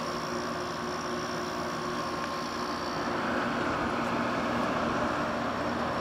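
Haier HWC05XCB window air conditioner running in cooling mode: a steady fan whoosh over the low hum of its Highly compressor. The sound is smooth and nice and quiet, a compressor in good working order.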